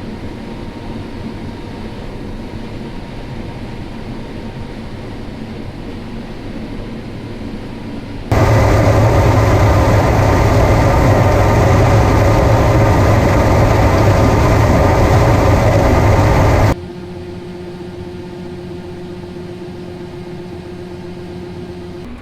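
John Deere S670 combine running while harvesting corn: a steady engine and machinery hum. About eight seconds in, a much louder, fuller machine noise cuts in sharply, and it cuts out just as sharply about eight seconds later, leaving a quieter hum with a different steady tone.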